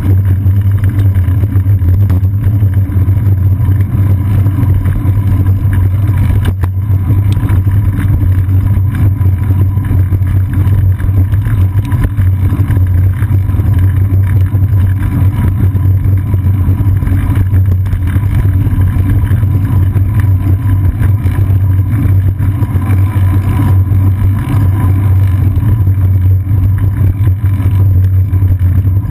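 Steady, loud low rumble of wind and road vibration on a bicycle's seat-post-mounted action camera while riding through city traffic, with one sharp knock about six and a half seconds in.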